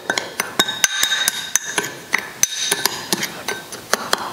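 Metal spoon clinking and scraping against a ceramic bowl while stirring a dry spice mix: quick irregular taps, about three or four a second, each with a short ring.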